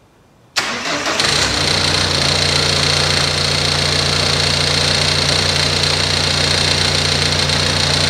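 Ford Transit Connect's 1.8 TDCi four-cylinder diesel cranking and catching about half a second in, then idling steadily. It now starts because the replacement engine ECU is reading engine speed.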